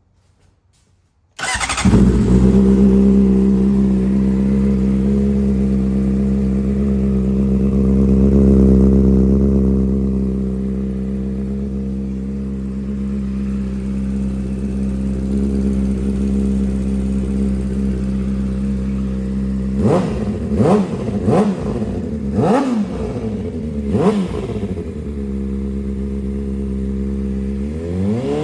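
2007 Honda CBR600RR inline-four sport bike engine with a full aftermarket exhaust starting up about a second and a half in and settling into a steady idle, then blipped through a quick series of throttle revs and revved again near the end. It has a tick and rattle that the owner puts down to the exhaust header and the cam/timing chain.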